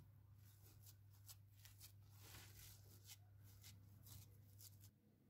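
Faint, irregular scraping of a spatula stirring a thick whipped cream and coconut mixture in a glass bowl, over a low steady hum; it cuts to silence near the end.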